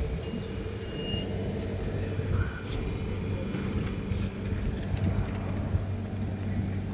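Stadler Variobahn tram arriving and standing at the platform, giving a steady low hum. A short high tone sounds about a second in, and a few faint clicks follow.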